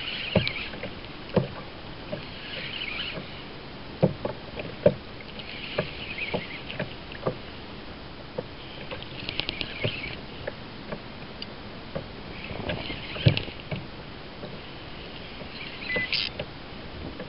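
Sea water washing and slapping against the hull of a small fishing kayak every few seconds, with scattered sharp knocks and clicks from the boat and the rod being handled.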